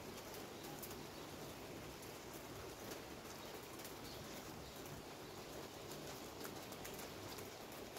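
Steady rain falling, with scattered sharp drops tapping through it.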